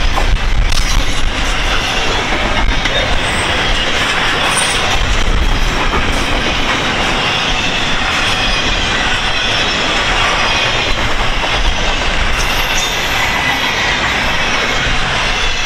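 Freight train of intermodal well cars rolling past, a steady loud rumble of wheels on rail with a faint high wheel squeal.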